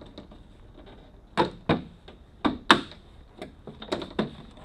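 Sharp clicks and knocks of plastic trim and parts being worked loose on a Jeep Wrangler TJ's door, in irregular single strikes with a quicker run of lighter clicks near the end.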